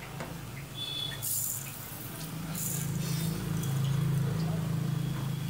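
Sugar poured from a small glass bowl into an aluminium pan: short hisses of falling granules and light clinks of glass, over a low steady hum that grows louder in the second half.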